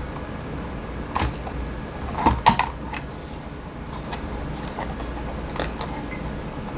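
A handful of short, sharp plastic clicks and knocks at irregular intervals as the repaired computer mouse, its left-click switch newly replaced, is handled and tried out. The loudest click comes about two and a half seconds in.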